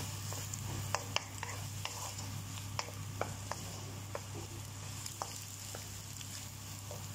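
Wooden spatula stirring and scraping egg, peas, carrots and onion around a hot nonstick wok, with a steady sizzle of frying. Irregular sharp clicks come from the spatula knocking against the pan.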